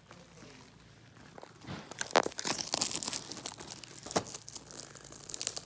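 Plastic wrapping on a DVD case crinkling and tearing as it is pulled off and handled, starting about two seconds in, with a couple of sharp clicks.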